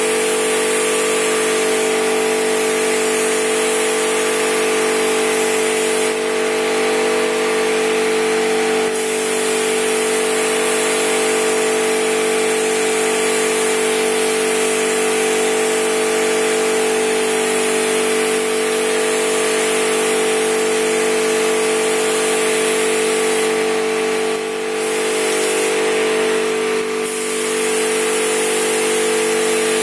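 A compressed-air paint spray gun hissing as it lays clearcoat, over a loud, steady mechanical hum from running machinery.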